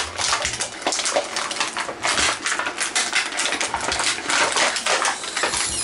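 Rapid clicking, clattering and crinkling of hard plastic as an action figure's parts and plastic packaging are handled.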